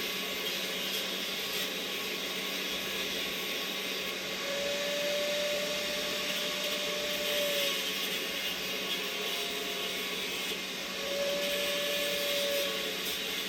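Steady whooshing of a small motor-driven machine, with a higher steady whine coming in twice for a few seconds each.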